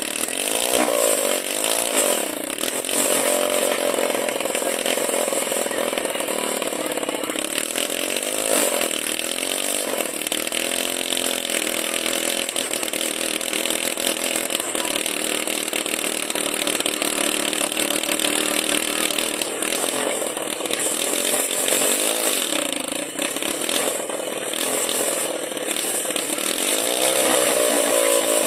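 A small engine running at high revs, its pitch rising and falling several times as it is revved up and down.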